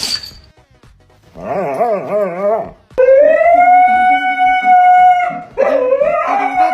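A sharp crack right at the start, then a dog howling: a short wavering howl, a long steady howl that rises at its start, and another wavering howl near the end.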